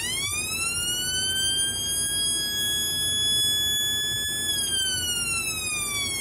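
Homemade electronic oscillator siren, built to sound like an American police siren, playing through a bare loudspeaker with a 47 µF capacitor fitted. The push button sends its tone sweeping up in pitch over about two seconds; the pitch holds, then about four and a half seconds in it starts a slow glide back down. The capacitor value sets how fast the pitch rises and falls.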